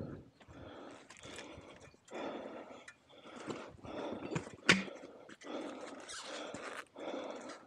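A person breathing hard in rough bursts, about one breath a second, with one sharp knock a little past the middle of the clip.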